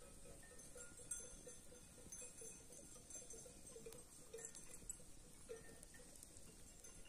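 Faint, scattered clinking of livestock bells from a grazing sheep flock, ringing on and off.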